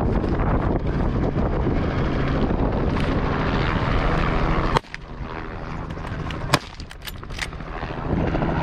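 A helicopter running close by, a steady loud rotor-and-engine drone. It drops away suddenly about halfway through, a sharp crack and a few quick clicks follow, and the drone builds back near the end.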